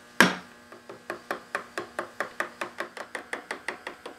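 A small hammer tapping a chisel into a teak knife handle: one harder blow just after the start, then a quick run of light taps, about five a second, each with a brief ring. The chisel is cutting the chipped wood back to widen the recess for a patch.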